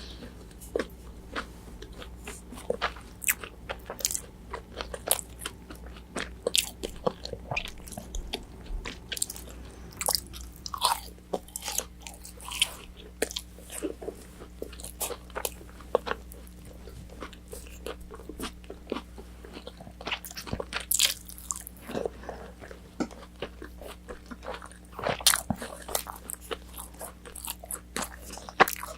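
Close-miked chewing of crispy fried orange chicken: many irregular sharp crunches and bites, over a faint steady low hum.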